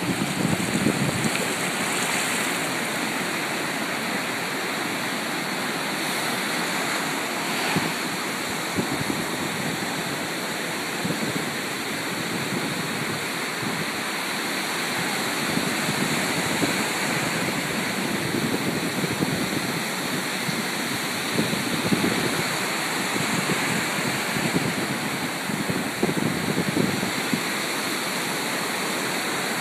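Ocean surf washing up on a sandy beach: a steady rush of breaking waves and foam running up the sand.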